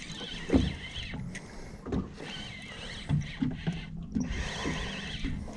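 Fishing reel's drag buzzing in spurts as a hooked northern pike runs, with scattered low knocks against the boat.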